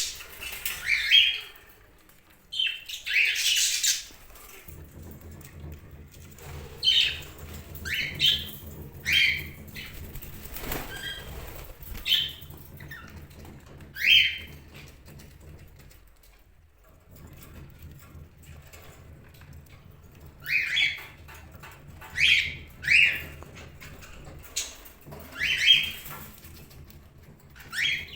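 Pet budgerigars chirping in short, sharp calls every second or two, with bursts of wing flapping as they fly. A low steady hum runs underneath for most of the time.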